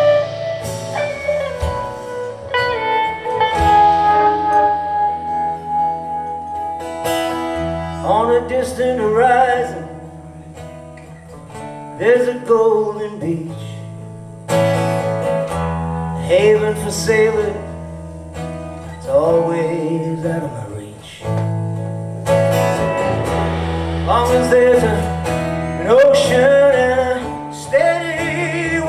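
Live band playing: electric and acoustic guitars, bass guitar and drum kit, with a lead melody that bends in pitch over the top. It eases off for a few seconds about ten seconds in, then builds up again.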